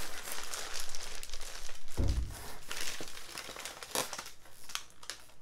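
Packaging crinkling and rustling as hands dig through a cardboard shipping box, with a dull thump about two seconds in and a sharp knock near four seconds.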